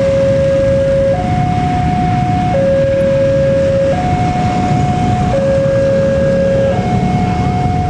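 Railway level-crossing warning alarm sounding a steady two-tone signal, a lower and a higher tone alternating about every one and a half seconds, warning that a train is approaching. A low rumble runs underneath.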